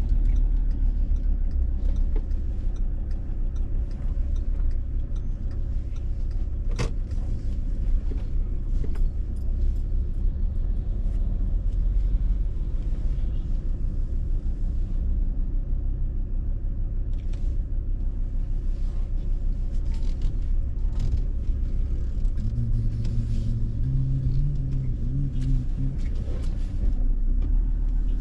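Vehicle driving along a road: a steady low rumble of engine and tyres. There is a sharp click about seven seconds in, and a low droning engine note joins for a few seconds near the end.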